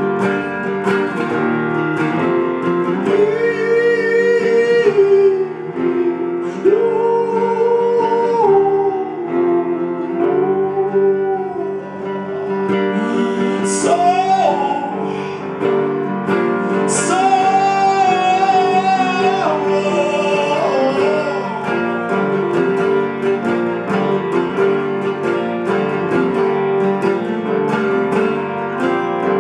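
Live band music: strummed guitar and a steady beat, with a wordless sung melody in long wavering notes over it.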